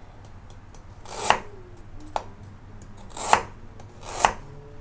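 Kitchen knife slicing young galangal root into thin rounds on a wooden cutting board: four crisp cuts about a second apart, each ending in a knock of the blade on the board.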